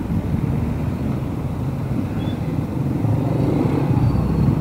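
Street traffic: car and motorcycle engines running close by, a steady low rumble.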